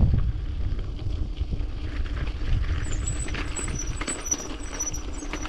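Mountain bike rolling downhill over a rough, stony gravel track: tyres crunching and the frame and parts rattling with constant small jolts, under a low rumble of wind on the body-mounted camera's microphone.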